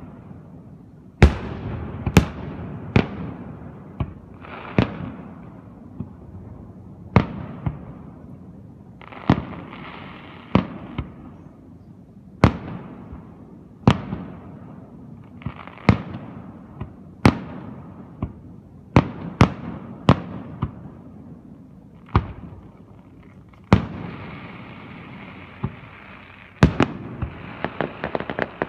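Aerial fireworks display: shells bursting one after another with sharp bangs every second or two, each trailing off in an echo. Twice there are longer stretches of fizzing noise between the bangs.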